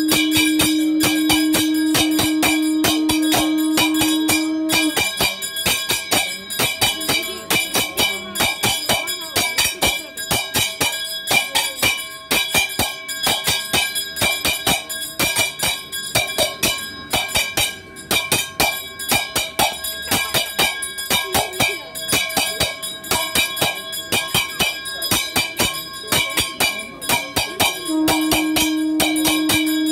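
Temple ritual music of bells and percussion beating in a rapid, steady rhythm during a kalasa abhishekam. A steady held tone sounds for the first few seconds and returns near the end.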